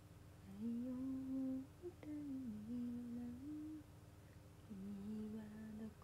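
A woman humming a slow tune to herself: three drawn-out phrases of held, gliding notes with short pauses between them.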